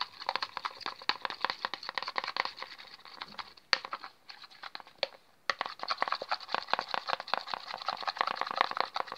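Glue with black tempera paint being stirred with a stick in a plastic bowl: rapid sticky clicking and crackling, easing off for a moment about four seconds in before starting again.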